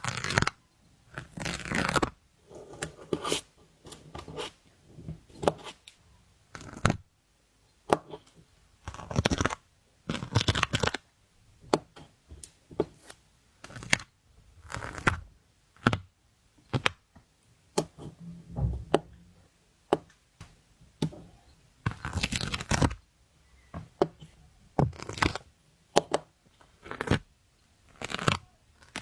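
Stickers being peeled off their backing sheet and pressed down, again and again: short tearing peels with sharp clicks between them.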